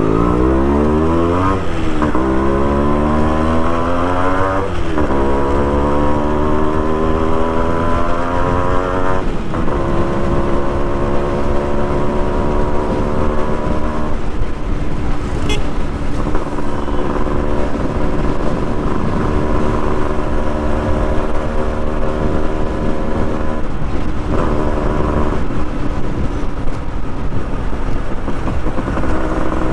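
Two-stroke motorcycle engine with a cut silencer, heard from the rider's seat as the bike accelerates. The engine note climbs and drops back at three upshifts in the first ten seconds or so, then runs at a steady cruise, easing off briefly twice, with wind rush on the microphone.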